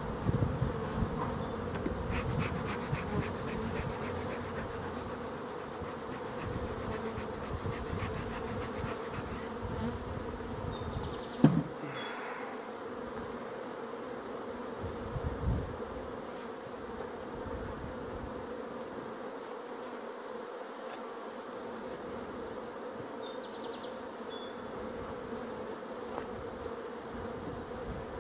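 A colony of honeybees buzzing steadily on the uncovered frames of an open hive. A single sharp knock stands out about eleven seconds in.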